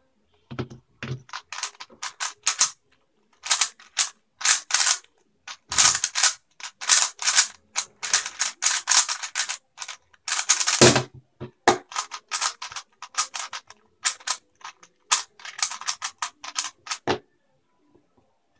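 A 3x3 speedcube being turned very fast: rapid flurries of plastic clicking and clacking as its layers snap round, broken by short pauses, with a few heavier knocks. The turning stops about a second before the end.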